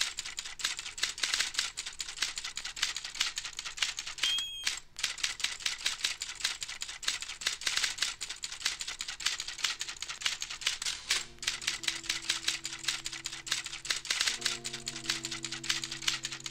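Electronic music played from vinyl in a DJ mix. A rapid, dry clicking and rattling percussion pattern runs throughout, and held bass and synth notes come in about eleven seconds in, shifting to new notes about three seconds later.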